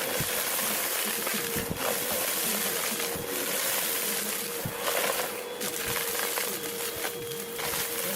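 Vacuum cleaner running, a steady motor hum under a loud rushing hiss that swells now and then, with scattered small knocks.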